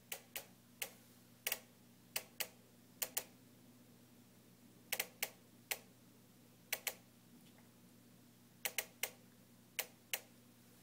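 JennAir stove ticking on its own after being switched off, a fault that repeated repair visits have not cured. The sharp clicks come irregularly, often two or three in quick succession, with pauses of about a second between groups.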